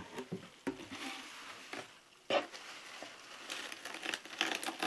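Light rustling, scratching and scattered clicks from a shipping box of live dubia roaches crawling over the packing material inside. A louder crinkle comes a little over two seconds in.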